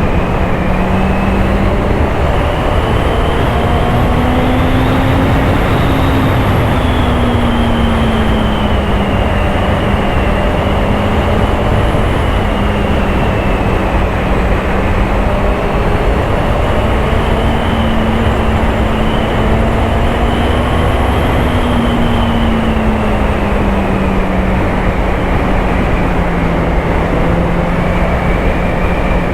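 Honda CBR650R's inline-four engine running at a steady road speed, its pitch rising and falling gently a few times, under a constant rush of wind noise.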